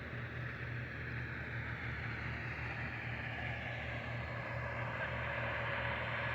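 A motor vehicle's engine running with a steady low drone, slowly growing louder.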